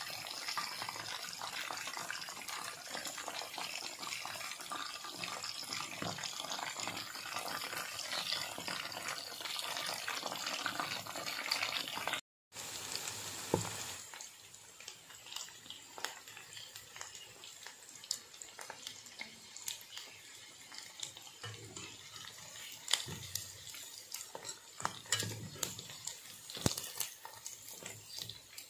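Chicken wings deep-frying in hot oil: a dense, steady sizzle and crackle. After a brief cut about twelve seconds in, the sizzle is quieter, with scattered sharp pops and a few low knocks.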